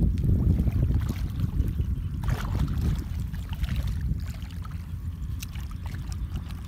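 Muddy water sloshing and splashing around a person's legs as they wade through a shallow puddle. Wind buffeting the microphone gives a steady low rumble underneath.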